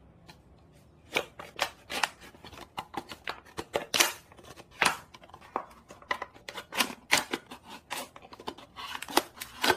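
Scissors cutting through a thin plastic water bottle: a run of sharp, irregular snips and crackles of the plastic, starting about a second in.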